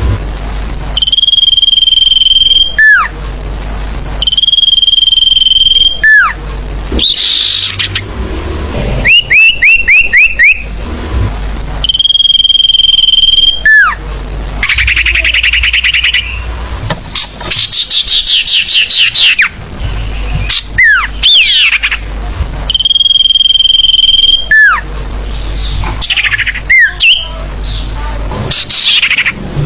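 Sirfu bird song played as a looped lure call: a steady high whistle of about a second ending in a quick downward sweep, repeated several times, alternating with rapid runs of falling notes and buzzy trills. A steady low hum runs underneath.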